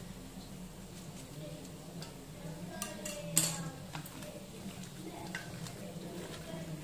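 Light ticks and taps of a knife and hands against a steel mixing bowl as green chillies are sliced over it and marinating raw chicken is mixed by hand. A sharp metallic clink comes about three and a half seconds in.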